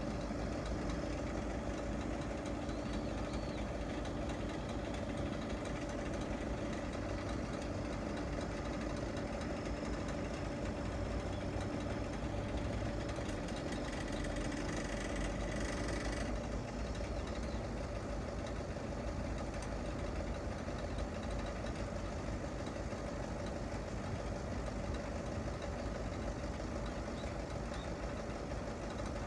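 Steady machine drone with a low rumble under it and two steady hum tones; the lower tone stops a little over halfway through.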